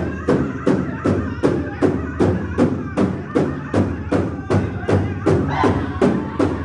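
Music with a steady drum beat, about three strikes a second, and voices singing over it.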